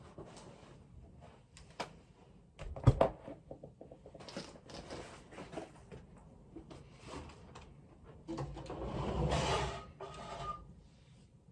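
Objects being handled at close range: irregular clicks and rustling, with one sharp knock about three seconds in and a louder noisy burst of about a second and a half near the nine-second mark.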